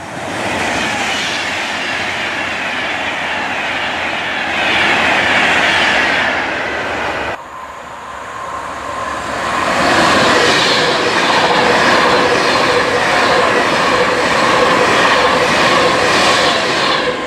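Avanti West Coast Class 390 Pendolino electric trains passing on the main line, with wheel-on-rail noise and a falling whine. About seven seconds in there is a cut to a second Pendolino that approaches and passes close, with a steady whine.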